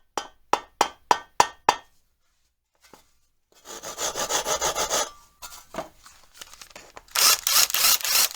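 Rasping, scraping tool strokes. First a run of about six sharp strokes, roughly three a second. Then, after a pause, faster rasping strokes, and a louder harsh scraping near the end.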